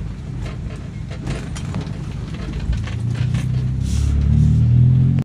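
Daihatsu Sigra's engine and aftermarket exhaust droning in the cabin while driving. About three seconds in, the drone grows louder and steadier.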